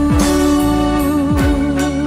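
Background music, an instrumental passage between sung lines of a Vietnamese pop song: a long held melody note over a few soft drum beats.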